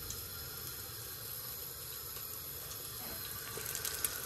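Onions frying in a pot with a steady sizzle as they lightly brown, with a few sharper crackles near the end.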